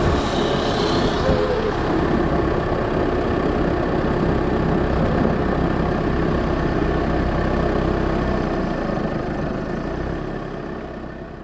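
Steady rumbling road noise and wind from riding fast down an asphalt road, wheels rolling on the surface, fading out near the end.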